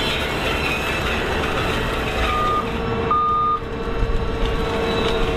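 A heavy tracked carrier's engine running steadily, with two beeps of a reversing alarm a little after two seconds in.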